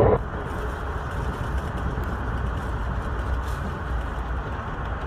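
Steady running rumble of an Amtrak Vermonter passenger coach in motion, heard from inside the car.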